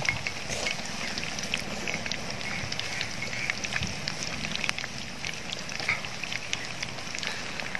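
Chicken pieces in an oat coating deep-frying in hot oil: a steady sizzle dotted with many small pops and crackles.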